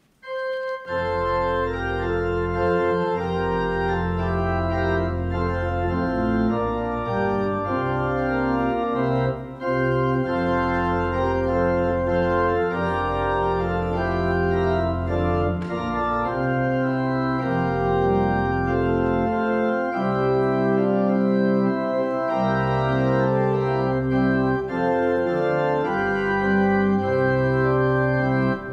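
Organ playing a hymn in full, held chords: the recessional music at the close of a Catholic Mass.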